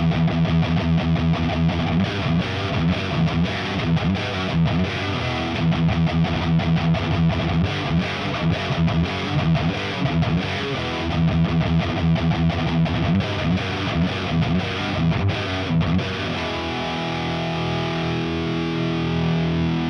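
A Kramer Baretta Special electric guitar with a Seymour Duncan DDJ bridge pickup, through a high-gain Diezel VH4 amp and a 4x12 cabinet with Celestion G12K-100 speakers, playing a fast distorted riff of short, rhythmic chugged notes. Near the end it lets a held distorted chord ring out.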